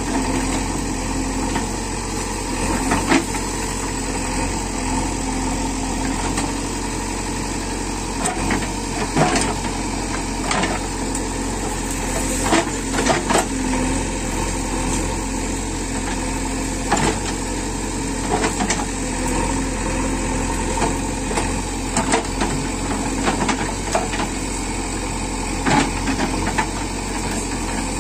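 Diesel engine of a JCB 3DX backhoe loader running steadily, with scattered short knocks and clanks over it.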